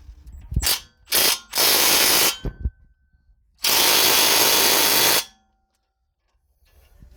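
Cordless impact wrench (impact gun) run in four bursts, two short and then two of about a second and a half each, on a car's 19 mm brake caliper bracket bolts.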